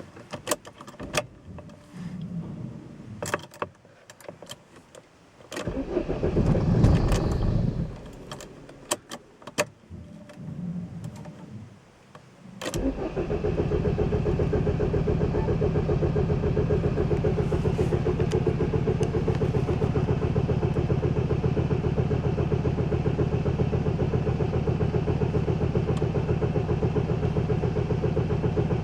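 Opel Vectra B 2.2 DTI four-cylinder turbodiesel being started: a few clicks, a short burst of cranking about six seconds in that does not catch, then a second try about thirteen seconds in when the engine fires and settles into a steady diesel idle. A hard-start problem, with the Bosch VP44 injection pump in question.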